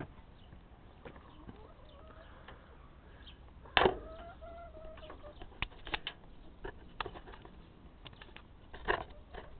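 Domestic hens clucking in a coop, with a loud knock about four seconds in and scattered knocks and clicks.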